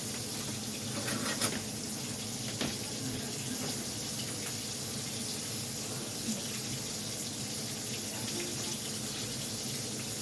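Steady watery hiss of a kitchen at work, with a few light clicks and knocks in the first three seconds.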